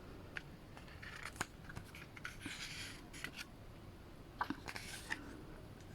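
Glossy photobook pages being turned and handled: faint paper rustles and small clicks, with two louder page swishes about two and a half and four and a half seconds in.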